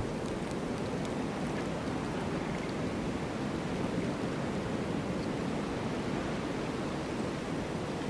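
Strong blizzard wind blowing as a steady, dense rushing noise, with no marked gusts or breaks.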